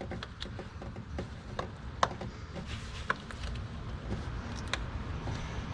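Scattered light clicks and taps of a coolant hard line and its plastic connector being worked free in an engine bay, over a low steady rumble that grows a little louder near the end.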